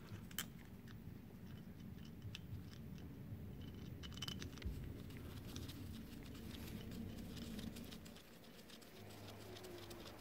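Faint scattered clicks and light scraping as a screwdriver turns the float-bowl screws into an aluminium carburetor body.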